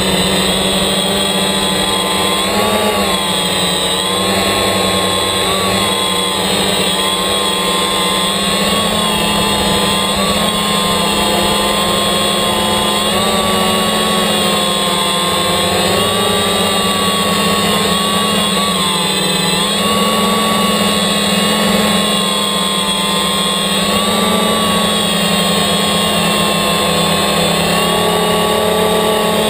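DJI Phantom quadcopter's electric motors and propellers buzzing close to the GoPro mounted on it, a steady whine whose pitch wavers a little up and down as it flies.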